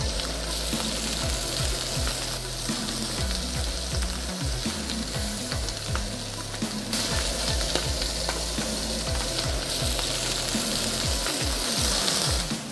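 Salmon, scallops and prawns frying in olive oil in a hot pan, sizzling steadily; the sizzle grows louder from about seven seconds in.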